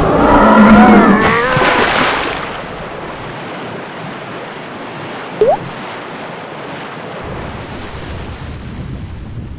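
Steady wash of ocean surf. It opens with loud wavering pitched cries or effects during the first two seconds. A sharp pop and a short rising blip come about five and a half seconds in.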